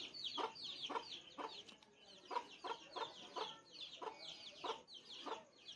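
Faint chickens clucking and chirping: a steady run of short falling high chirps, with short clucks about twice a second.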